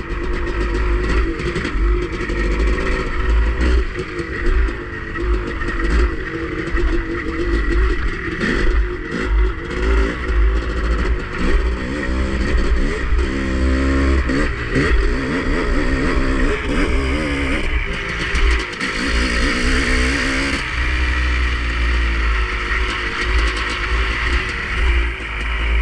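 Off-road vehicle engine running under way on a dirt trail, its pitch rising and falling several times as the throttle is worked. Heavy wind rumble on the microphone throughout.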